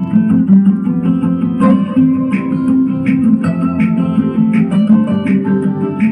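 Acoustic guitar music, strummed chords in a steady rhythm.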